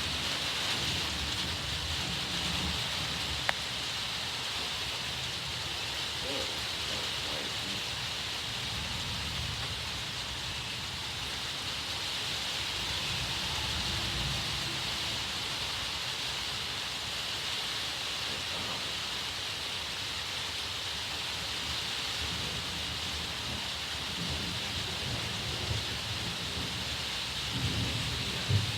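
Distant thunder rolling and rumbling on and off, swelling several times, over a steady high hiss. A single sharp click sounds a few seconds in.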